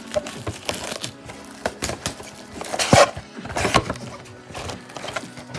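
A cardboard trading-card hobby box being opened and its foil packs handled: a run of crinkles, tears and light taps, with one louder tear about three seconds in.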